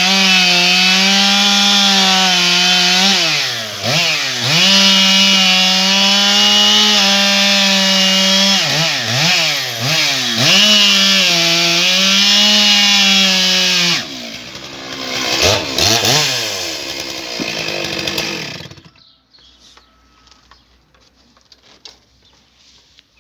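Stihl MS 661 C-M two-stroke chainsaw running at high revs through small logs, its engine note dipping and climbing back several times. About fourteen seconds in it drops to a lower, uneven running, revs briefly once more, and stops about five seconds later. Only faint light ticks follow.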